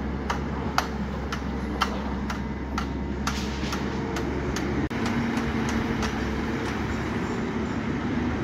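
Caterpillar hydraulic excavator's diesel engine running steadily under load as it digs and lifts a bucket of soil. Sharp ticks come about twice a second through the first half, and there is a momentary dropout about five seconds in.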